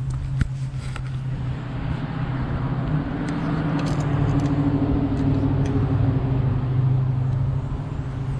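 Motor vehicle running nearby, a steady engine hum with road noise that swells to its loudest about midway and then eases off.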